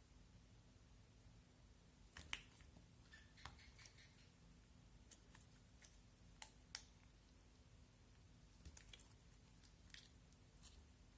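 Popcorn putty slime being worked by hand, giving scattered small crackles and sharp pops over a faint hum. Two pops stand out, a little over two seconds in and again near seven seconds.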